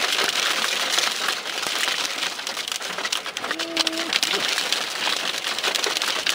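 Hail pelting the windshield and roof of a car, heard from inside the cabin: a dense, steady clatter of many sharp ticks over a constant hiss.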